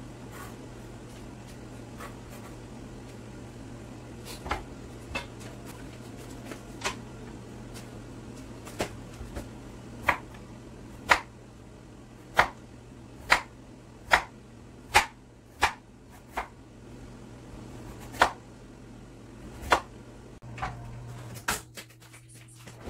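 Kitchen knife chopping vegetables on a wooden cutting board: sharp knocks about once a second, loudest in the middle, with a steady low hum underneath.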